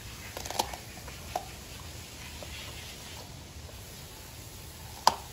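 A German Shepherd crunching a carrot: a few sharp crunches in the first second and a half, then one loud snap near the end.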